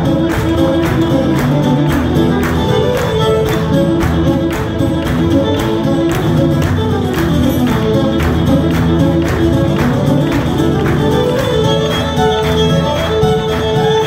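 Two fiddles playing a lively fiddle tune over strummed acoustic guitar, with a steady, even beat of about three strokes a second.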